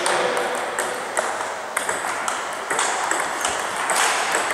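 Table tennis rally: the ball clicking sharply off the bats and the table, a run of clicks about every half second.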